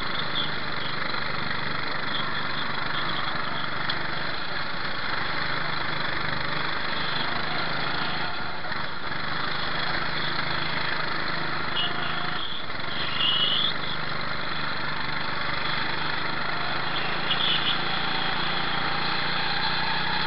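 Go-kart engine running steadily at racing speed, heard from the driver's helmet camera over a steady rush of wind. Two brief high-pitched squeals, about two-thirds of the way through and near the end.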